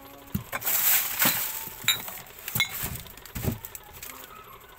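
Goods being handled and moved about on a store shelf: plastic packaging rustling in the first second or so, a few dull knocks, and two short light clinks about two seconds in.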